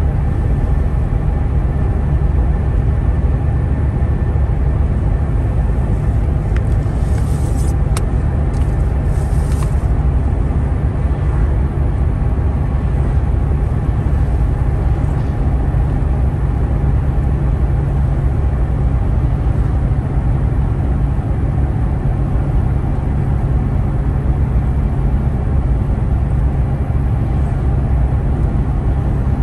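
Steady low rumble of a car driving along a paved road, engine and tyre noise heard from inside the cabin. A brief hiss with a single click comes about eight seconds in.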